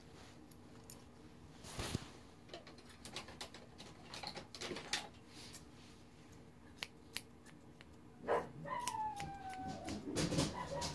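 Thinning shears snipping through a puppy's head coat: irregular short, crisp clicks. Near the end a dog gives one falling whine, and more dog noise starts up.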